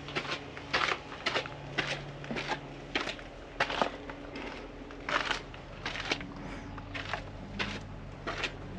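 Footsteps climbing the bare stairs of a house under construction, about two steps a second, each step a short sharp scuff.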